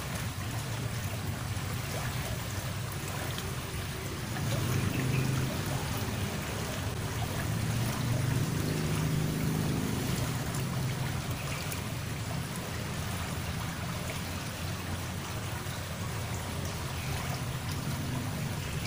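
A small, murky stream flowing steadily, its water rushing and churning past debris, a little louder in the middle.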